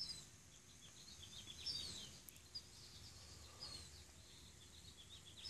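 Faint, high bird chirps: many short notes scattered throughout.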